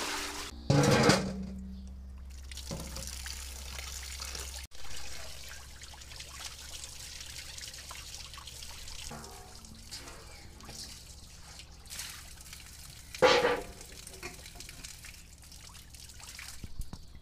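Water poured and trickling out of stainless steel bowls, splashing through a wooden drain grate, as meat is rinsed at an outdoor tap. A metal bowl clanks and rings sharply about a second in, and again later.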